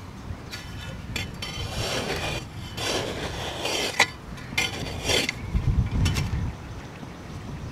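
Small metal hand trowel scraping and scooping loose sandy soil out of a gopher hole in several strokes, with a sharp metallic clink about four seconds in.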